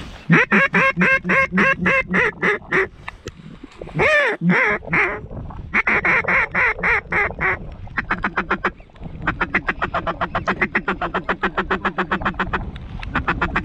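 Hand-blown duck call sounding mallard hen quacks in evenly spaced strings, then a fast run of feeding chatter about nine seconds in, calling to circling ducks.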